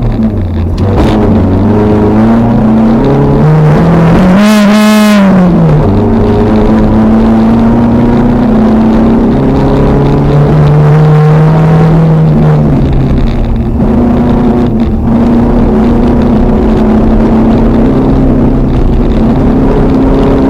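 Toyota RAV4's 3S-GE four-cylinder engine heard from inside the cabin, running hard with the revs rising and falling through gear changes. About four and a half seconds in, the revs flare sharply up and drop back.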